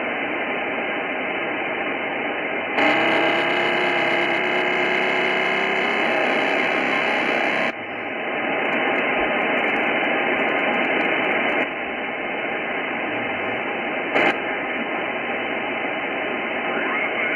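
Hiss from an Icom IC-9700 transceiver's speaker, receiving single sideband on the RS-44 satellite's 435 MHz downlink while the receive frequency is retuned. From about three to eight seconds in it grows louder and carries faint whistling tones, and a short click comes about fourteen seconds in.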